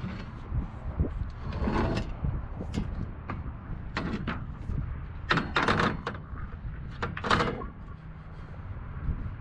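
Aluminium-framed solar panel being set onto a metal roof rack: a series of short scrapes and knocks as the frame bumps and slides on the rack bar, loudest in the second half, over a steady low rumble of wind on the microphone.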